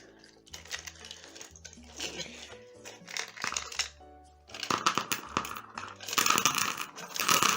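Background music with a slow, low bass line, joined about halfway in by loud crinkling, rustling and clinking as hands rummage through small items inside a cut-open Minion toy.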